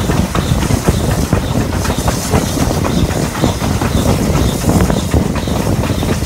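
BR Standard Class 4 tank locomotive 80078 running under steam at the head of the train, heard from the carriage right behind it: a steady din of the engine working and the wheels clattering over the rails.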